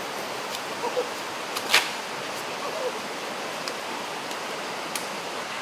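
Steady rush of a stream running over rocks, with one sharp click or snap a little under two seconds in and a few fainter ticks.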